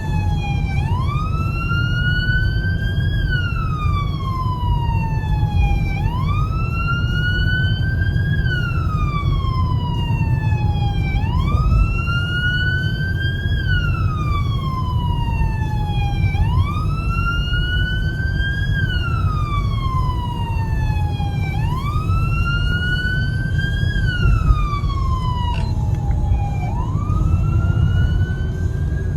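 Emergency vehicle siren in wail mode, rising and falling about every five seconds, over a steady low rumble of engine and road noise.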